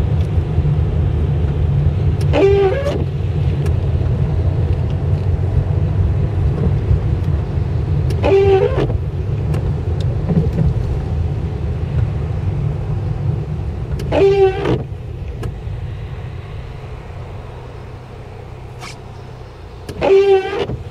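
Inside a moving car, a steady low engine and road rumble that dies down over the last few seconds as the car slows. About every six seconds comes a short squeaking sweep, four in all, from the windscreen wipers running on intermittent in the rain.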